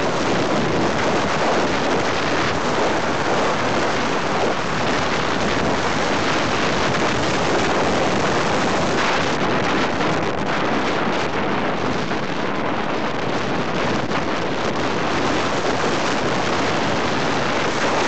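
Steady wind rushing over the microphone of a motorcycle in motion, mixed with the bike's road and engine noise.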